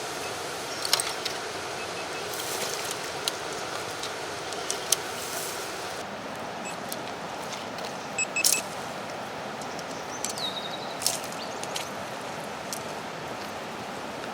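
Steady rush of flowing river water, with scattered sharp clicks and knocks on top.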